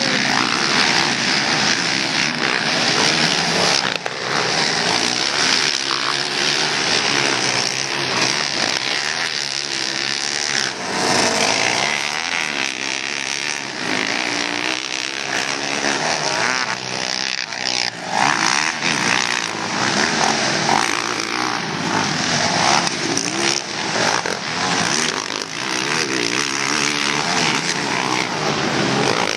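Racing ATV (quad) engines revving hard on a motocross track, their pitch climbing and dropping over and over as the riders accelerate and back off.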